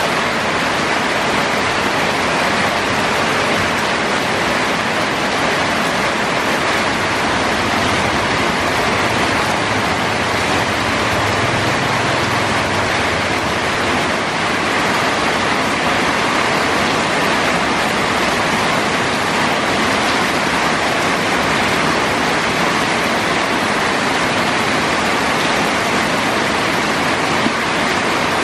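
Heavy tropical downpour: loud, steady, unbroken hiss of rain pouring onto the street and roofs.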